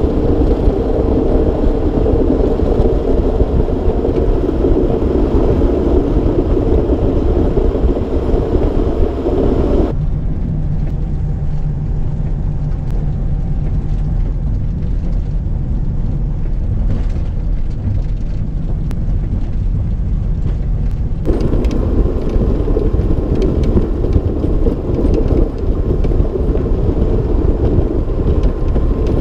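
Mack Granite snowplow truck running at road speed while its plow and wing push and throw snow: a loud, steady rushing noise over the diesel engine's drone. About ten seconds in the sound changes to the quieter, deeper engine rumble heard inside the cab, and about twenty-one seconds in the rushing returns.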